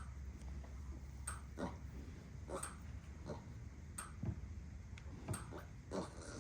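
Electric fence charger snapping in a steady rhythm, one sharp click about every 1.3 seconds, with piglets grunting faintly between the snaps.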